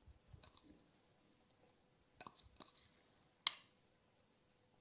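Mostly quiet handling sounds: a few faint light taps and clicks of small ceramic bowls, with one sharper click about three and a half seconds in.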